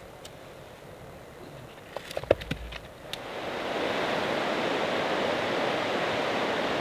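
Rushing creek water, a steady noise that is faint at first and becomes much louder about three seconds in. Just before it swells, a few sharp clicks and knocks, the loudest about two seconds in.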